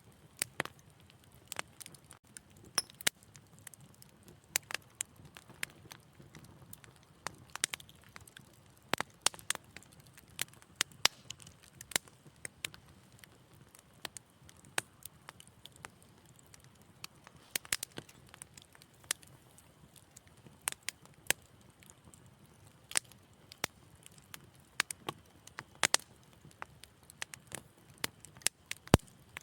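Wood fire crackling, with sharp irregular pops and snaps several times a second over a faint low hiss.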